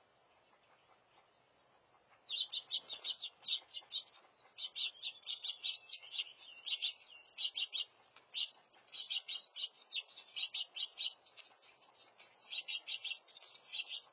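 Young birds chirping rapidly and almost without pause, high-pitched, starting suddenly about two seconds in.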